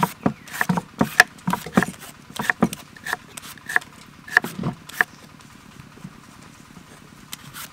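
A julienne peeler scraping across the flesh of a green mango, cutting off thin strips in quick strokes about two or three a second, which stop about five seconds in.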